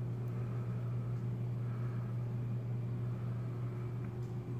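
Steady low hum of a running reef aquarium's equipment.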